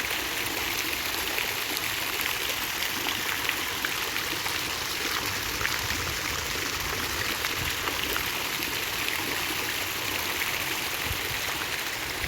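Steady rush of running water with fine splashing.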